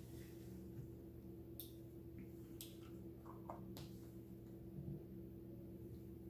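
Quiet room tone with a steady low electrical hum and a few faint, brief clicks and rustles.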